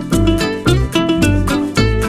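Upbeat background music with plucked strings over a steady, bouncing bass beat.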